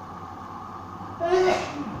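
A person sneezing once, about a second in, over the steady hum of a Hoover washing machine running.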